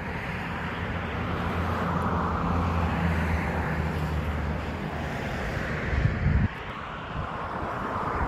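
Motor vehicle engine humming as it passes close by, its road noise swelling and then fading; the engine sound cuts off abruptly about six and a half seconds in, leaving fainter outdoor noise.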